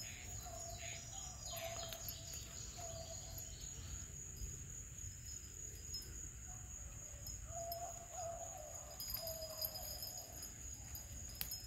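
Distant hunting dogs baying in short, faint, repeated calls as they run a rabbit's trail, over a steady high drone of insects.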